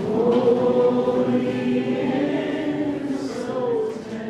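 A group of voices singing together in slow, long-held notes. The singing swells up at the start and eases off near the end.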